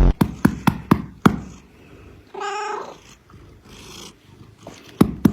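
A domestic cat meows once, a short pitched call about halfway through. A few sharp clicks come before it, and a quick, even run of clicks begins near the end.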